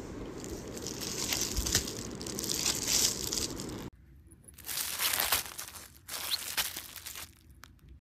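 Clear plastic packaging around a silicone dashboard pad crinkling as it is handled. It gives a long spell of dense crackling, then two shorter bursts near the end.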